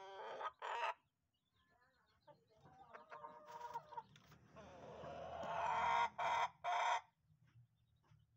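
Rooster crowing: a long drawn-out crow that swells in loudness and breaks into two short loud notes near the end, after a brief call at the start and shorter broken calls about three seconds in.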